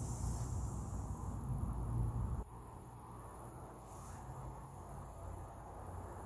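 Outdoor yard ambience with a steady, high-pitched insect trill. A low rumble on the microphone dominates the first two and a half seconds, then cuts off suddenly.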